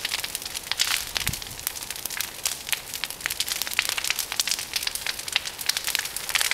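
A big pile of dead tree branches burning fiercely, giving a dense, steady crackle of many sharp pops and snaps each second.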